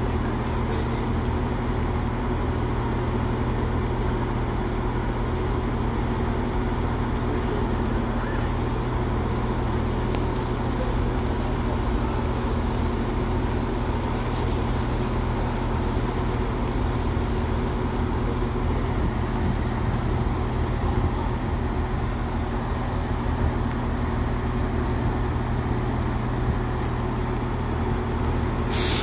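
Class 170 Turbostar diesel multiple unit standing at the platform with its underfloor diesel engines idling: a steady low hum.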